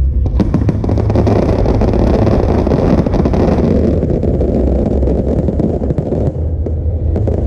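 Fireworks barrage: dense crackling over a heavy low rumble, with the crackle dying down about six seconds in.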